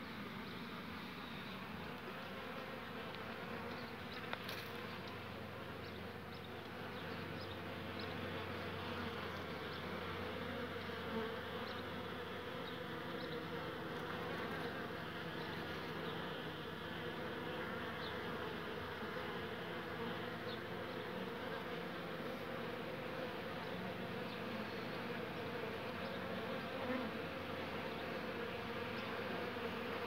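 Honey bees buzzing at a wooden hive entrance: a steady, continuous hum of many wings. It grows a little louder after about seven seconds.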